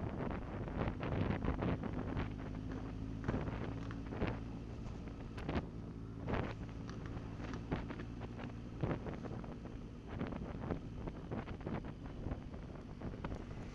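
Motorcycle engine running at a steady cruising note while riding, with heavy wind buffeting the microphone in repeated gusts.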